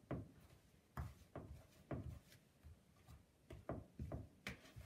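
A utensil stirring a stiff, crumbly dough in a plastic mixing bowl: faint, irregular scrapes and knocks, about two or three a second.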